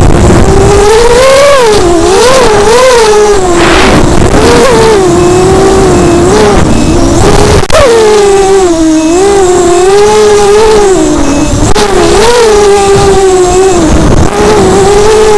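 The brushless motors and propellers of a small FPV racing quadcopter, recorded by its onboard camera: a loud whine that swoops up and down in pitch as the throttle is worked, with a sharp punch upward about halfway through. Propwash and wind noise run underneath.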